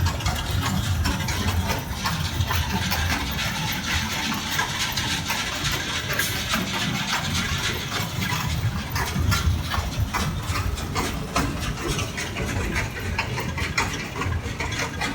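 Sugar beet piler running: its conveyor belts carrying a load of beets up, a steady, noisy machinery rumble with constant clatter and knocking of beets rattling along the belts.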